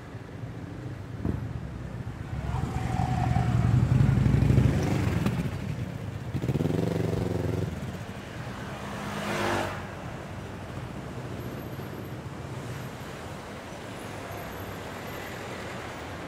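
Motor vehicles passing close on a street. The loudest pass builds to a peak about four seconds in, with shorter passes following around seven and ten seconds.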